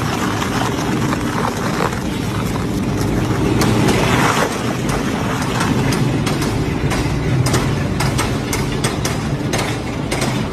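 Double-blade shredder running steadily, with many sharp cracks and snaps that grow denser from about six seconds in as material is chewed between its blades.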